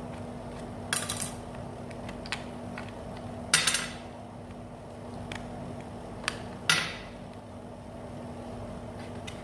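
Plastic case of a satellite receiver remote control being prised open: three crackling snaps as the clips give, about a second, three and a half and nearly seven seconds in, with lighter clicks between, over a steady low hum.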